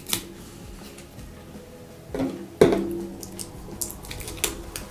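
Plastic ink bottles handled as their packaging is stripped off: scattered small clicks and crinkles, with one sharp knock about two and a half seconds in.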